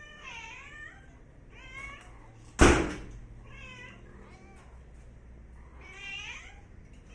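A domestic cat meowing several times in short, high, gliding calls. A single loud thud comes about two and a half seconds in.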